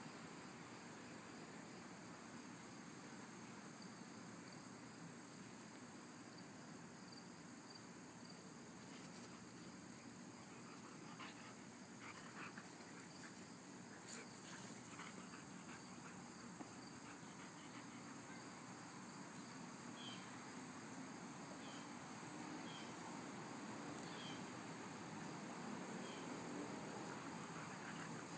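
Quiet summer outdoor ambience dominated by a steady high-pitched insect drone of crickets. A few faint soft clicks come through in the middle, and a run of short high chirps about a second apart follows in the second half.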